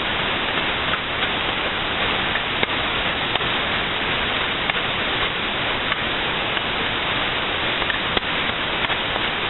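Chopped onion frying in hot oil in a pan: a steady sizzle with scattered small crackles and pops.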